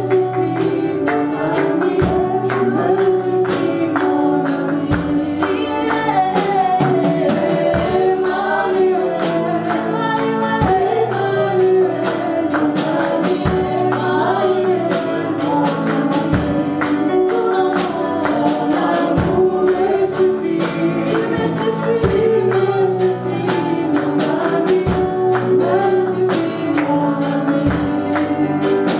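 Gospel worship song sung by a small group of singers over a steady beat, with hand clapping.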